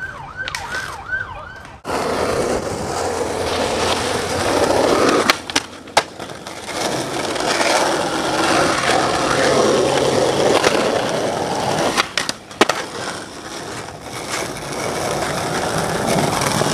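Skateboard wheels rolling loudly over rough pavement close by. The roll breaks off twice, about five and twelve seconds in, with sharp clacks of the board hitting the ground. Before the rolling starts there is a short, repeated high warbling tone.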